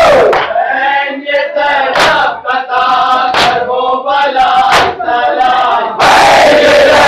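A lead voice sings a noha line alone, over sharp slaps of matam (chest-beating) about every second and a half; about six seconds in, the crowd of mourners comes in loudly on the chorus.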